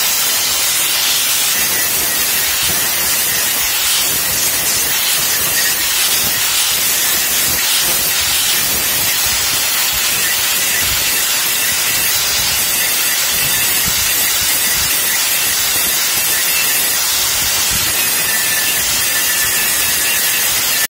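Handheld angle grinder with an abrasive disc grinding a steel bar into a chisel: a loud, steady hiss of the disc on the metal, with a faint steady whine underneath.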